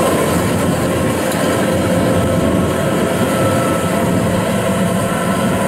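Kubota DC-93 rice combine harvester running steadily at close range, a loud, even machine noise with a few steady tones in it.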